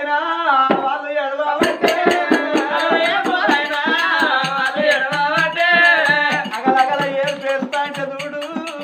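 Male voices singing an oggu katha folk song into microphones, joined about a second and a half in by rapid, busy strokes on hand drums.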